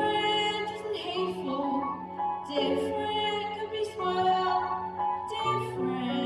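A slow song: a solo voice singing long held notes over a steady accompaniment.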